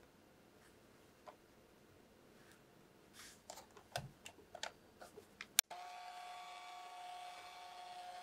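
Quiet at first, then a run of light clicks and taps and one sharp click, after which a six-speed stand mixer's motor starts and runs steadily with a wire whisk, beating powdered sugar into whipped cream cheese.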